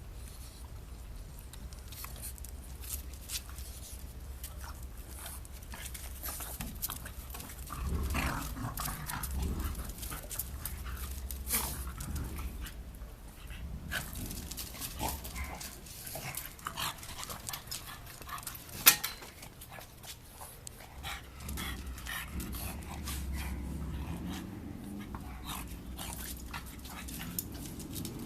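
A black pug and a Shiba Inu play-wrestling: dog vocal sounds amid a steady run of scuffling and rustling, with one sharp click partway through.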